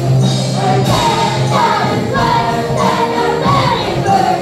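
Music for a stage dance number, with a group of voices singing sliding phrases over a steady low note.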